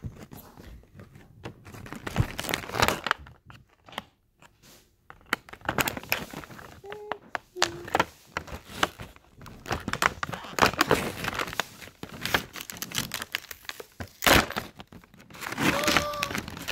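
Handling noise from a new diary and its packaging: irregular crinkling, rustling and sharp clicks and knocks close to the microphone as it is worked at to get it open.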